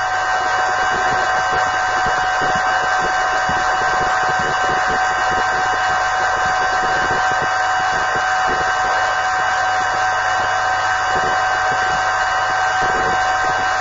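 Steady static hiss with a constant electronic whine and low hum, standing in for the drama's soundtrack: an audio fault in the recording.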